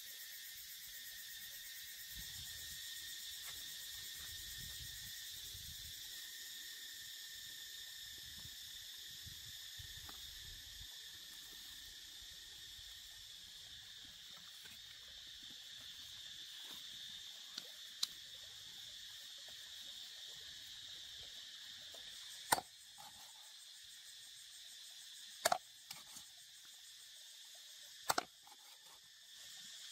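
Steady chorus of insects, crickets or cicadas, running high and even throughout. Near the end come three sharp chops, a few seconds apart, of a cleaver cutting through a snake's body onto a wooden chopping block.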